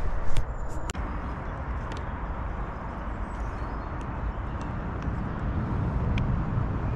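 Wind buffeting the microphone outdoors, a steady low rumbling noise, with a few light clicks of fishing tackle being handled.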